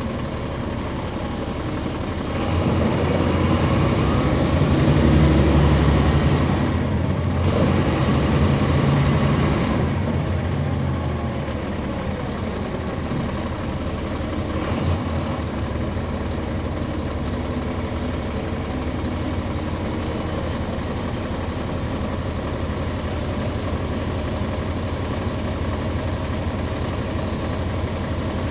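Caterpillar C13 diesel engine and ZF Ecomat automatic transmission of a NABI 40-foot transit bus, heard from the back seats near the engine. About two seconds in the engine pulls harder with a rising transmission whine, eases back around ten seconds in, then runs steadily.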